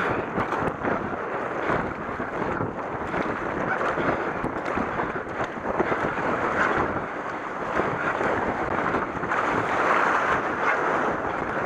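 River water rushing and splashing around a K1 racing kayak as it runs through choppy rapids, with wind buffeting the microphone.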